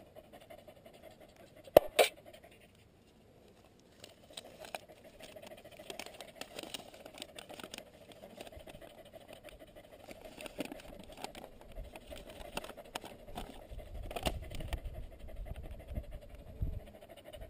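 Paper rustling and crinkling as a folded summit register sheet is handled and unfolded, with two sharp knocks about two seconds in.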